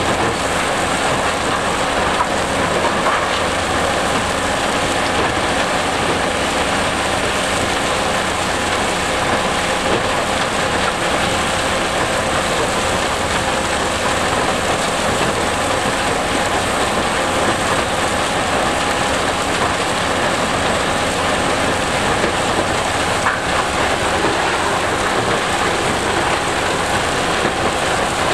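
GIPO R131C tracked mobile impact crusher running under load: a steady, dense rattle and rumble of rock being crushed and crushed stone pouring off the discharge conveyor, with a faint steady hum underneath.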